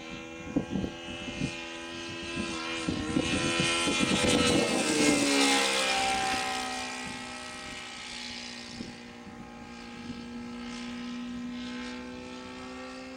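Fuel-engined radio-controlled model PC-21 flying past: the engine's steady drone grows louder, then drops in pitch about five seconds in and fades as the plane passes. Wind buffets the microphone in the first few seconds.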